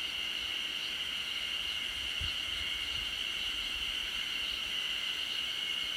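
A chorus of many Ezo-harusemi cicadas (Terpnosia nigricosta) calling together: a steady, high-pitched drone with no break.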